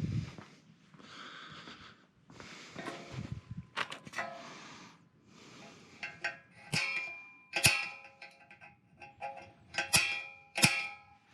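Metal clanks with a short metallic ring, four sharp ones in the second half, and handling and scraping noises between them, as metal parts and tools are worked.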